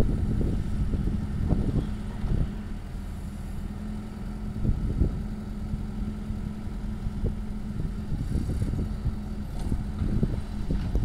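Small crawler excavator's diesel engine running with a steady low hum over an uneven rumble; the hum drops away about nine seconds in.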